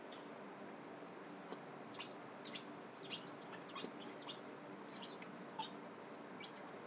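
Feeder crickets chirping faintly in short, irregular chirps, several a second, over a steady low hum.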